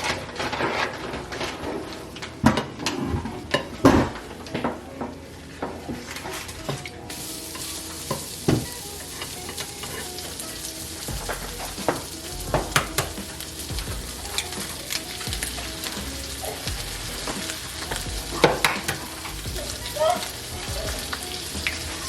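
Food sizzling in a hot pan, the sizzle starting suddenly about a third of the way in, with a cooking utensil clicking and knocking against the pan and dishes throughout.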